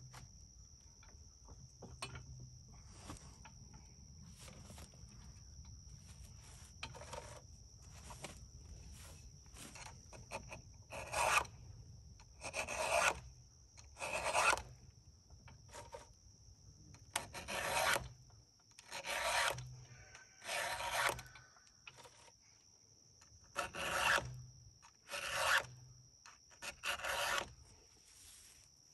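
Hand file being stroked across the cutters of a Stihl 460 chainsaw's chain to sharpen it. Faint strokes come first, then about nine louder strokes roughly one every second and a half.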